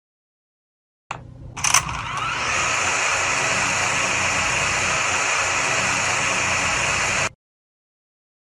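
DJI drone's electric motors and propellers spinning up about a second in, with a rising whine, then running at a steady high buzzing hum. The sound cuts off suddenly about a second before the end.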